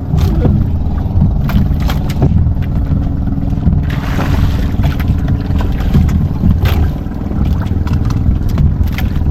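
Small fishing boat's engine running steadily, with scattered knocks and a short rush of water noise about four seconds in.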